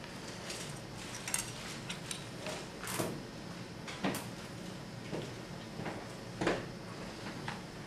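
Scattered light clicks and knocks of craft materials and tools being handled, with a few sharper taps, over a steady low room hum.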